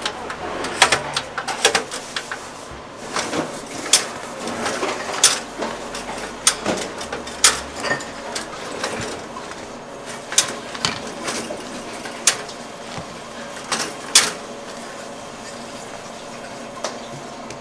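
Irregular light clicks and knocks of bagel halves being handled, set into stainless steel slot toasters and laid on a wooden cutting board, over a faint steady kitchen hum. The clicks thin out over the last few seconds.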